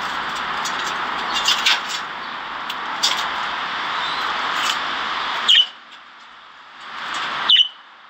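Budgerigars in an outdoor aviary: a few short chirps over a steady rushing background, then two loud, sharp calls sliding down in pitch, one about five and a half seconds in and one near the end. The background noise drops away sharply after each call.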